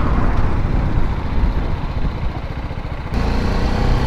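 BMW G310GS single-cylinder engine running while riding at road speed, mixed with heavy wind rush on the microphone. A little after three seconds the wind noise drops away abruptly and the engine's steady hum comes through clearly.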